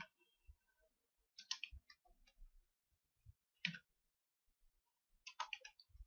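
Faint, sparse clicks of working at a computer: single clicks every couple of seconds, then a quick run of clicks near the end.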